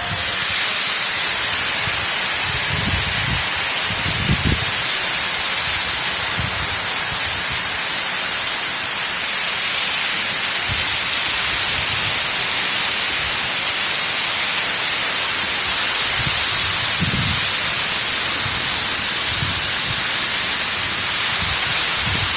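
Heavy tropical-storm rain and wind, a steady, even rushing hiss, with a few brief low rumbles.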